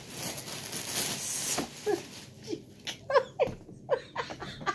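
Rustling and brushing as a large plush toy is handled right at the microphone, followed by a string of short, high whines that each fall in pitch, about eight in three seconds.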